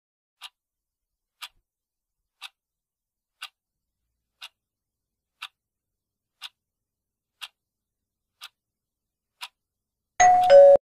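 Quiz countdown-timer sound effect: a clock ticking once a second, ten ticks, then a loud, short two-note alert falling in pitch near the end, marking time up.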